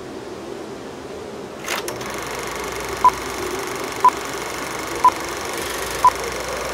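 Edited sound-effect track: a steady mechanical whir, a brief clatter about two seconds in, then short electronic beeps at one pitch, exactly once a second, four in all.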